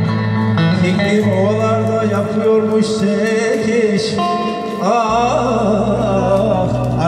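Live Turkish folk dance music from an amplified electronic keyboard: a wavering, ornamented melody over a held bass note that shifts lower about five seconds in.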